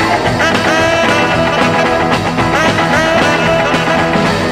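A 1959 rock and roll record playing: a full band with a lead line of sliding, bending notes over a steady rhythm.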